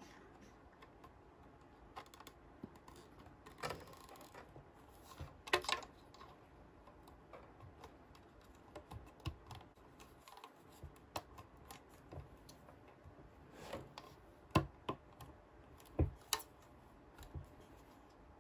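Hands handling the pieces and packaging of a Hello Kitty toy bunk bed, making irregular light clicks and taps with a few short rustles. The firmest knocks come near the end.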